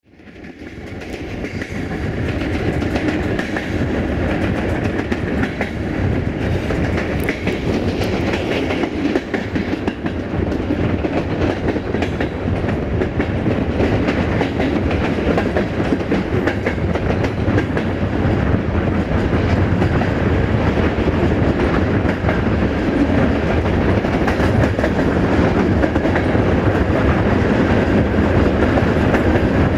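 Passenger train running on the rails, heard from an open carriage window: a steady rolling noise of wheels on track with occasional clicks. It fades in over the first two seconds.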